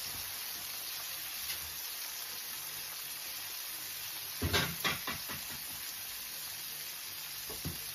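Oil sizzling steadily around a whole pre-boiled chicken shallow-frying in a pan, with a short cluster of pops about halfway through and one more near the end.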